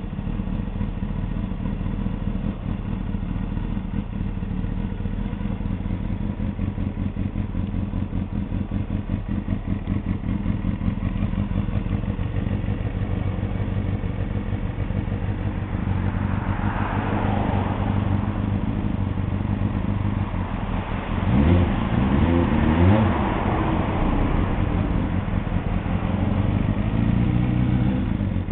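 Kawasaki Balius 250's four-cylinder engine idling steadily, then revved up and down a couple of times about three-quarters of the way through, the pitch rising and falling quickly before settling back to idle.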